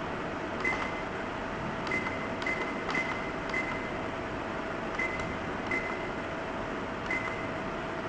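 Buttons on a digital alarm clock radio being pressed one at a time, each press a click with a short high beep, about eight times at uneven intervals. Under them runs a steady faint hum and hiss.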